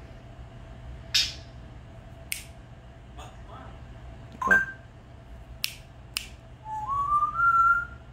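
African grey parrot giving a short whistle that rises in steps near the end, after several sharp, scattered clicks and a brief squeak.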